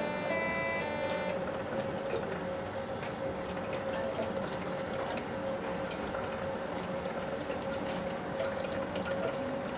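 Hemodialysis machine running: a steady hum with a constant tone and a watery, pumping noise as its blood pump moves blood through the lines and dialyzer while the circuit fills, before the venous line is connected. A short run of electronic beep tones sounds in the first second.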